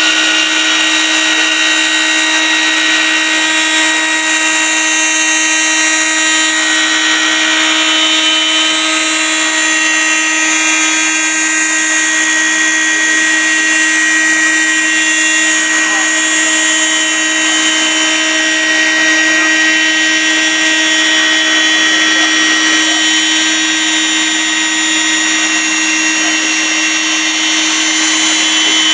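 High-speed spindle of an 8' x 4' rack-and-pinion CNC router running steadily, a whine of several steady pitches over the noise of its cutter routing grooves through a wooden board.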